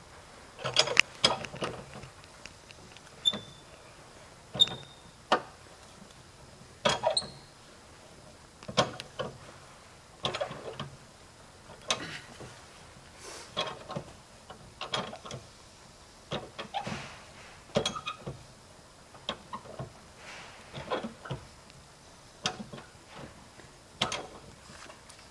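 A car jack being lowered by hand under a car: repeated metal clicks and clanks, a few every one to two seconds, some with a short ringing note.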